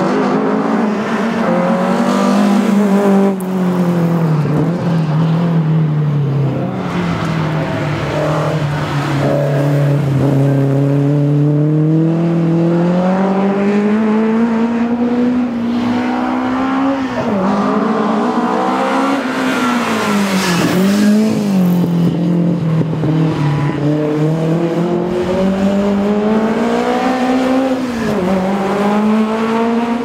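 Alfa Romeo Giulia GTAm race car's twin-cam four-cylinder engine revving hard under full throttle, its pitch climbing and falling with the throttle and gear changes, with sharp drops where the driver lifts off around the middle and near the end. Tyres squeal at times as the car slides through corners.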